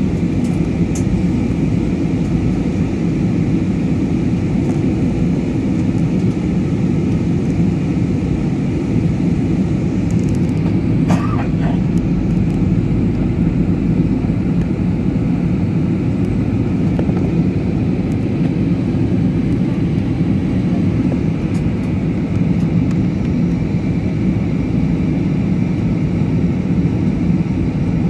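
Steady cabin noise of a passenger jet in flight: engine and airflow noise heard from inside the cabin, even and unchanging.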